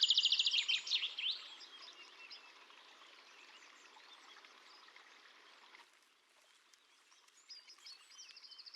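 Birds calling over a faint outdoor hiss: a loud rapid trill of high notes at the start, scattered chirps after it, and another rapid trill near the end.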